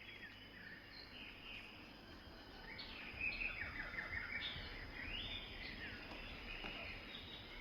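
Birds chirping faintly, many short repeated chirps over a quiet, steady background noise.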